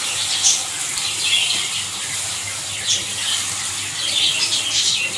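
Minced meat and dry spices sizzling in a steel karahi, with uneven bursts of sharper hiss as a wooden spoon stirs and turns the mince; the spices are being roasted into the meat.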